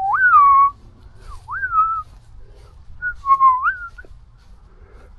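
A man whistling three short phrases, each a clear tone that swoops up and then falls back.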